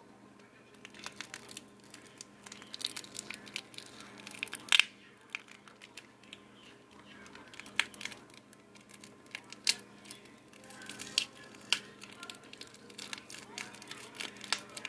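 Close-up ASMR handling of a small object: irregular crinkling and crackling with sharp clicks, one louder snap about five seconds in.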